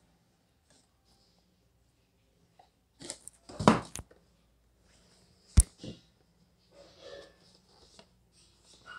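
Cardboard product box being handled and moved: a rustling, scraping burst about a third of the way in, then one sharp tap just past the middle, followed by light rubbing and rustling of the packaging.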